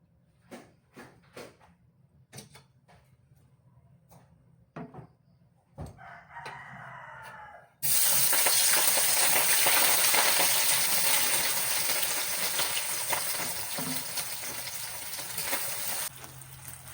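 Scattered light taps and knocks, then a rooster crowing about six seconds in. About eight seconds in, a loud sizzle of food frying in hot oil starts suddenly and cuts off near the end.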